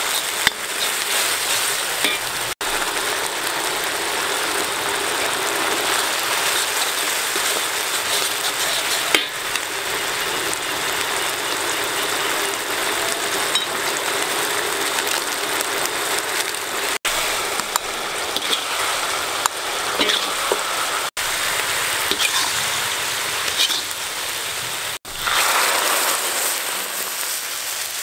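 Chopped dried red chillies sizzling in hot oil in a steel wok, with a metal spoon now and then clinking and scraping against the pan. Near the end the sizzling surges louder as broth is poured into the hot wok.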